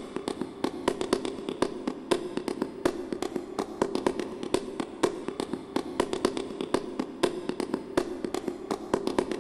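Dense, irregular crackling clicks, several a second, over a steady low drone: the sound bed under the closing credits.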